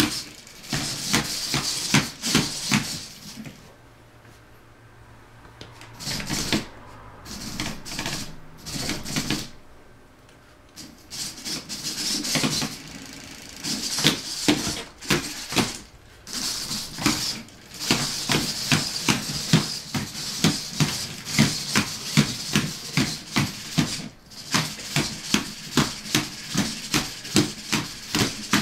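Hexapod robot's hobby servos whirring while its legs and feet rattle and tap rapidly on a hardwood floor as it walks. The sound drops away briefly about four seconds in and again about ten seconds in.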